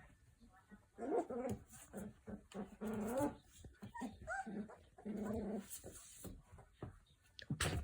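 Three-week-old puppies making several short whining and growling calls. A sharp click near the end is the loudest sound.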